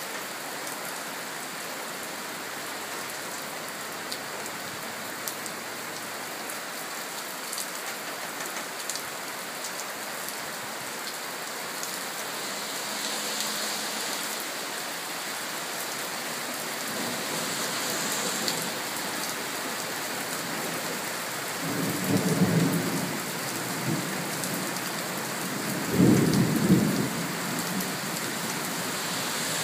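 Steady rain falling, with a few sharp drop clicks early on. Thunder rumbles twice in the last third, the second peal louder.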